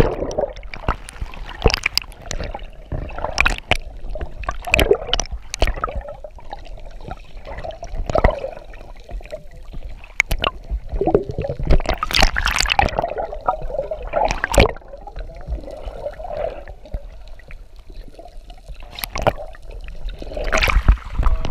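Muffled underwater gurgling and bubbling around a diving camera's housing, broken by frequent irregular knocks as the housing bumps against a diver's clothing and gear.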